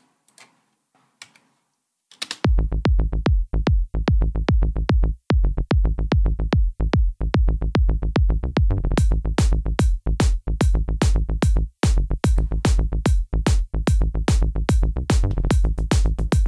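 Electronic dance beat built on a kick drum synthesized in Native Instruments Massive, driving with a bassline from about two seconds in. Sharp high ticks join the rhythm about halfway through.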